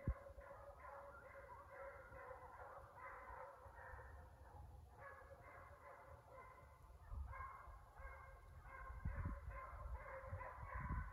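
A pack of deer hounds baying on the chase, many voices overlapping in a faint, steady chorus, with low rumbles near the end.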